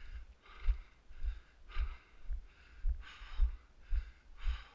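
A person breathing hard in and out while walking, with footsteps thudding about twice a second on dry grass and pine needles.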